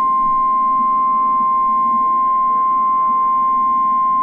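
NOAA Weather Radio warning alarm tone: a single steady, loud, high-pitched tone near 1 kHz that cuts off sharply near the end. It is the signal that a warning message follows.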